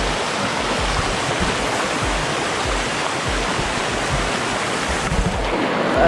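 Background music with a steady low beat, over the steady rush of flowing water.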